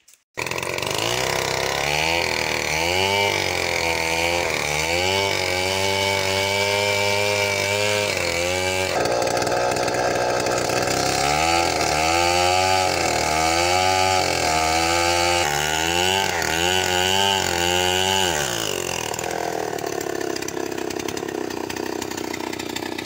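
Stihl 070 two-stroke chainsaw cutting through a coconut trunk, its engine pitch wavering up and down again and again as the chain works through the wood. For the last few seconds it runs steadier and a little quieter.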